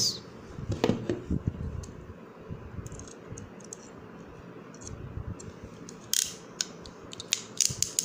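SN-28B ratcheting hand crimping tool and a small metal crimp terminal being handled as the terminal is set into the jaws: irregular clicks and light metallic ticks, with a cluster about a second in and a louder click a little after six seconds.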